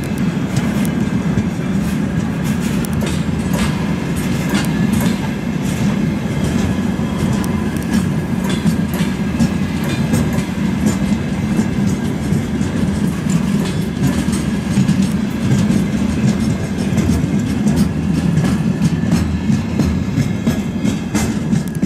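Empty freight flatcars rolling past close by: a steady rumble with continual clicking and clattering of the wheels on the rails.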